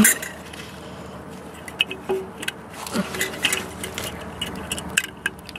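Scattered metallic clinks, taps and scrapes of a long extension tool against the EGR valve and the surrounding engine parts, as the valve is worked loose from a gasket that is still clinging to it.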